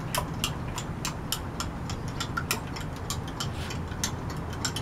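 A metal spoon stirring liquid in a glass measuring cup, clinking against the sides in quick, irregular ticks, several a second.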